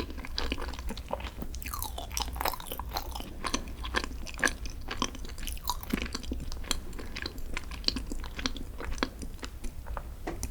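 Close-miked chewing of green tea desserts, a dense run of small irregular clicks and mouth noises that stops abruptly at the end.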